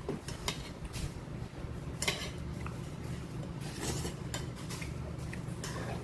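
Eating utensils clinking and scraping against a dish, a handful of separate light clinks spread out, over a low steady hum.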